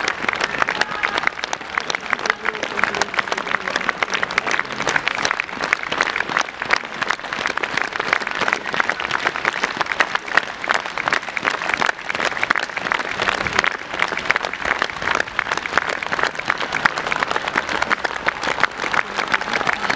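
A large crowd applauding, steady dense clapping of many hands that keeps on without a break.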